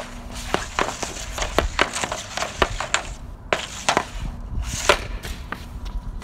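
Bauer Vapor 1X hockey stick blade tapping a puck back and forth on a shooting pad, a quick run of sharp clicks a few per second, with one louder crack about five seconds in as the puck is shot off the pad.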